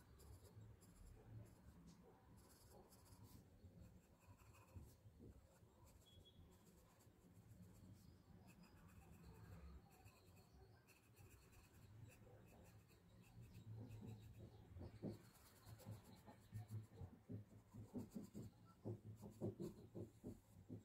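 Faint scratching of a graphite pencil on sketchbook paper during shading strokes. The strokes grow quicker and more distinct in the last several seconds.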